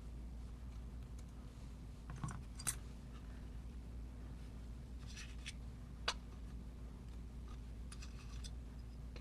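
Lock pick and tension wrench working in an Emhart pin-tumbler lock: a few small metallic clicks and brief bouts of scratching as the pins are worked. A steady low hum runs underneath.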